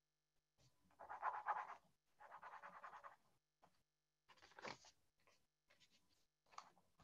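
Faint scratching of drawing strokes on paper: two longer runs of quick back-and-forth strokes about a second and two seconds in, then several short scratches.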